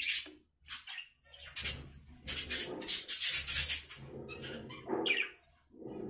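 Budgerigars chattering: short chirps, with a dense, louder run of calls in the middle.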